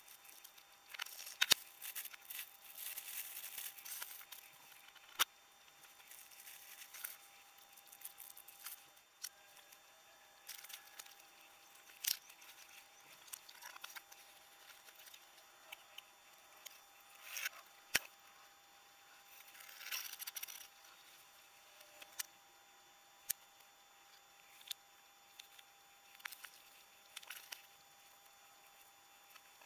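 Plastic wrapping and packaging rustling and crinkling as they are handled, with scattered sharp clicks and taps. The longest rustling comes in the first few seconds, with shorter bursts later. A faint steady tone sits underneath.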